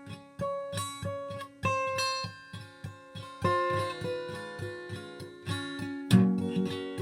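Acoustic guitar playing the song's instrumental intro: single picked notes over a steady bass, with a note about every half second. A fuller, louder chord is struck about six seconds in.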